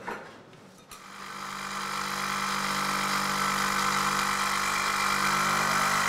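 Electric straight-knife cloth-cutting machine running, its motor and reciprocating blade cutting down through a stack of layered fabric. It comes in about a second in, rises over a second and then runs steadily.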